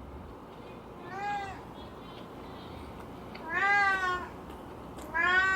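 A cat meowing three times, each call rising then falling in pitch; the first is short and faint, the second and third louder and longer.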